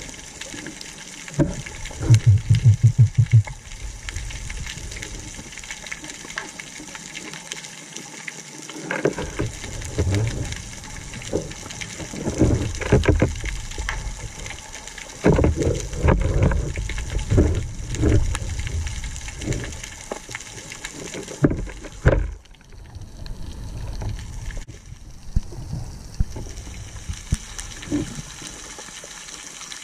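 Underwater sound through an action camera's waterproof housing on a speargun during a freedive: a muffled water rush with irregular low thumps and clicks, and a short rapid run of low pulses about two seconds in.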